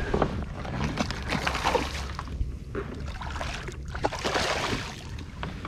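Water splashing and sloshing right beside a kayak, with many short, irregular splashes, as a hooked fish thrashes at the surface.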